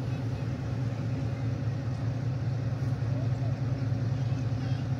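ZCU-20 diesel-electric locomotive's engine running with a steady low drone.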